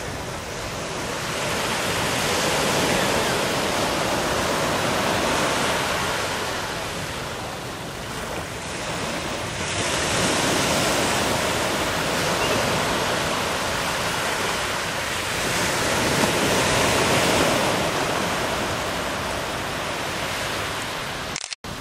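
Sea waves washing, a steady rush that swells and eases three times.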